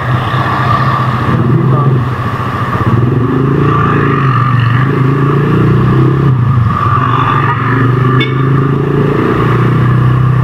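Motorcycle engine running steadily while riding, its note dipping and rising slightly a few times with the throttle, over a constant hiss of wind and road noise.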